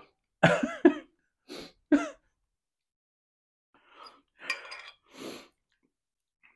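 A man's short, loud breathy gasps and exclamations in the first two seconds, from a mouth burning with very spicy noodles. After a pause come quieter handling sounds with light clinks from the glass bowl of noodles.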